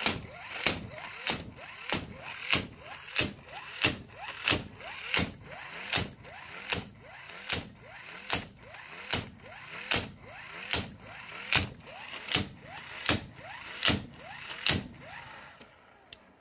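12 V corded impact wrench hammering slowly under heavy load against a bolt tension tester, about one and a half blows a second, with the motor's whine rising before each blow. The tool is smoking as it runs. The hammering stops about 15 seconds in.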